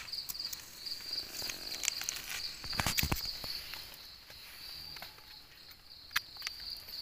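Crickets trilling steadily in a high pulsing chirr, with short scrapes and rustles of soil and leaf litter as a knife digs and a gloved hand pulls mushrooms from the ground, the loudest around three seconds in and a sharp click near six seconds.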